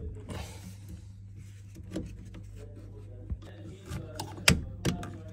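A few sharp plastic clicks and knocks as a combi boiler's automatic air vent is pushed and clipped back into its housing by hand: one about two seconds in, then a quick cluster between four and five seconds in, the loudest near four and a half seconds. A steady low hum runs underneath.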